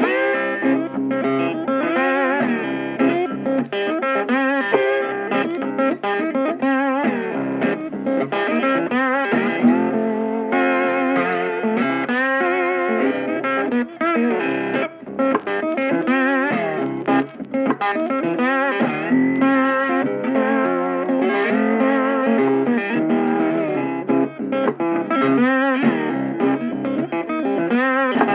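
Background music with a guitar lead, playing continuously at a steady loudness.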